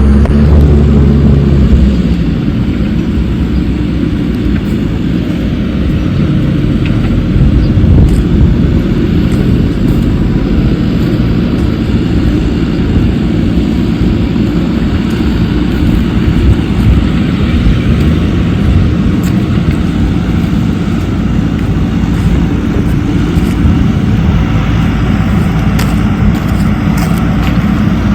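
Heavy diesel earth-moving machinery running steadily, a low engine rumble with a few light knocks scattered through.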